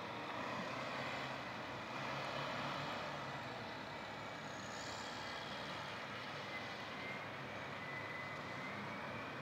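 Steady low drone of distant heavy earthmoving machines running while grading a field, with a faint high whine that drifts slowly in pitch.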